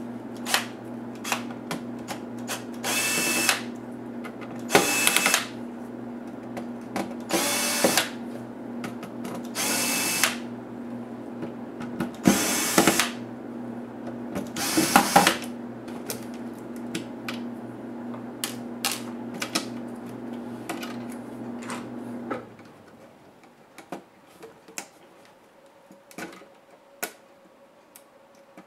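Cordless electric screwdriver whirring in six short bursts, every two to three seconds, as it backs screws out of a laptop's motherboard, followed by light clicks of small parts being handled. A steady low hum underneath stops about two-thirds of the way through.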